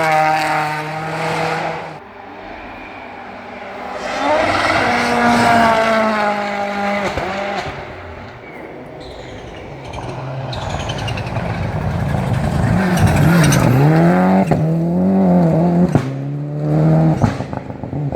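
Rally car engines revving hard and falling away as cars pass at speed. In the second half a Mitsubishi Lancer Evolution comes through with its anti-lag (misfiring) system, the engine note bouncing up and down between gears and the exhaust cracking with several sharp bangs.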